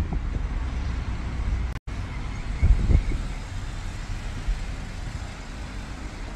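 Outdoor street noise: a steady low rumble of road traffic, with a louder low swell a little before three seconds in. The sound cuts out completely for an instant a little before two seconds in.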